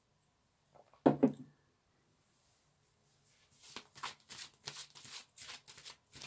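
A single knock about a second in, then a deck of tarot cards being shuffled by hand: a quick run of soft card slaps and flicks, about five a second.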